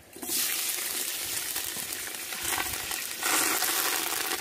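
Garlic paste sizzling in hot ghee and oil with whole spices as it drops into the pot. The sizzle starts suddenly and swells louder again about three seconds in.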